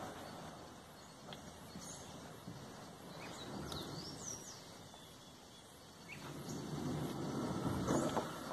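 Plastic kayak hull scraping over a dirt launch ramp as it is dragged along, the scraping getting louder over the last two seconds or so. Birds chirp a few times in the middle.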